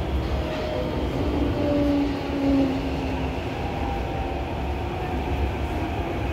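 Cabin noise of a CT251 metro train pulling out of a station: a steady low rumble of the running gear, with short whining motor tones that climb in pitch as the train picks up speed.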